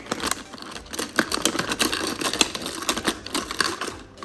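Small plastic toy food pieces clicking and clattering against a plastic toy pot and utensils, in quick, irregular taps.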